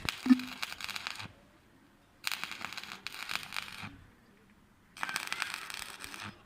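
Stick-welding arc with 6013 electrodes crackling in three short runs of about a second and a half each, with pauses between them, as the hinges are welded on in short beads.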